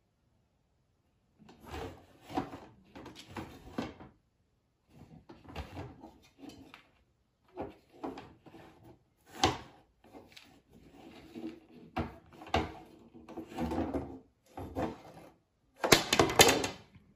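A beaver dragging a long wooden stick, the branch scraping and knocking on a hardwood floor in irregular bouts, with the loudest clatter near the end.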